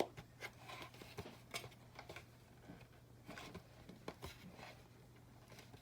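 Faint scattered clicks and taps of small plastic toy parts being handled as a miniature closet rod is fitted into its grooves, with the sharpest click right at the start.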